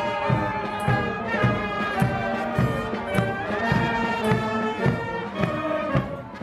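Carnival marching band playing a tune, with brass (tubas and baritone horns) and flutes over a steady bass-drum beat about twice a second.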